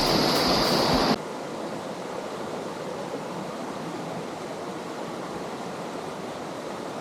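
Mountain stream and waterfalls rushing in a steady white-noise roar, loud at first and then cutting off sharply about a second in to a quieter, steady rush of flowing water.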